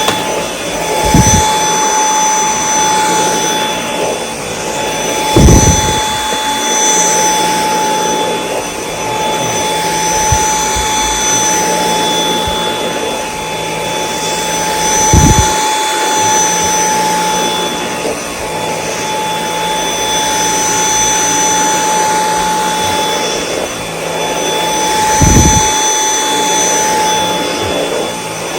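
Dyson V8 Extra cordless vacuum running steadily with its high motor whine while vacuuming carpet. About four dull low thumps sound over it.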